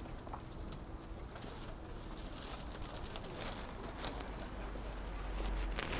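Outdoor street ambience: a low steady hum with scattered small clicks and rustling, and a low rumble that swells about five seconds in.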